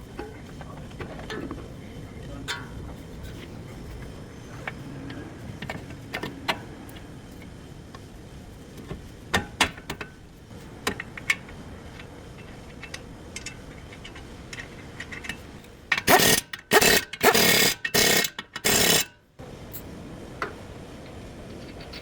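Workshop tool sounds: scattered light clicks and knocks of metal tools, then, about three-quarters of the way through, four or five loud short bursts of a power or air tool.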